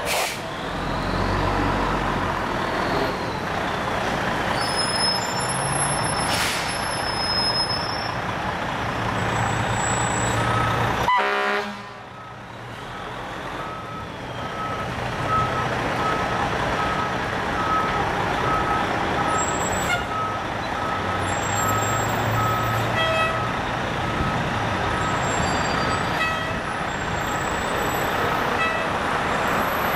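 Fire truck engine running with street noise. After a sudden break, a short beep repeats steadily about once a second over the engine.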